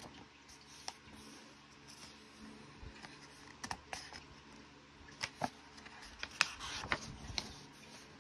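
Paper pages of a coloring book being turned and smoothed flat by hand: quiet rustling with a scatter of sharp ticks and taps, busiest from about five to seven and a half seconds in.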